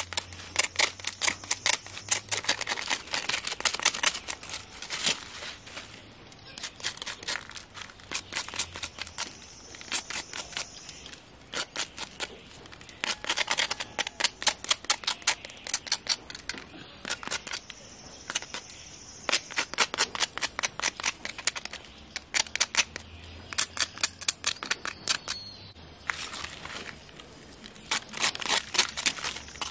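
A knife blade scraping the charred, burnt surface off a piece of fire-roasted salt fish, in quick repeated strokes. The strokes come in runs of a few seconds, with short pauses between.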